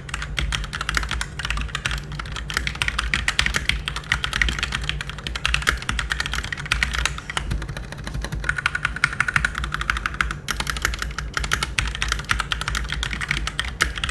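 Continuous typing on a Keychron mechanical keyboard fitted with Gateron Red linear switches, a rapid stream of keystrokes. This is the quietest of the three switch types (blue, brown, red).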